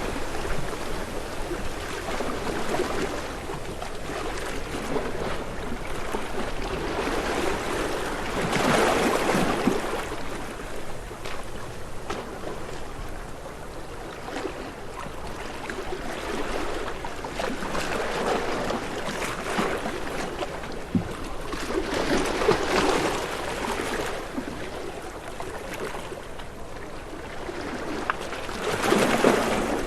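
Ocean waves washing in and drawing back, surging every several seconds with a louder wave near the end.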